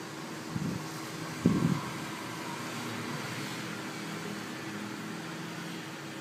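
Steady mechanical hum, with two brief low sounds about half a second and a second and a half in, the second louder.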